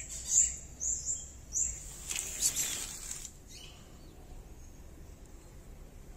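Small birds chirping: a run of short, high, falling chirps in the first two seconds, then a burst of noise lasting about a second, then only faint background.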